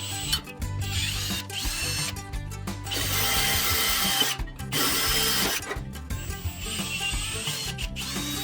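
A power tool running in two short spells, the second starting just after the first stops, over background music.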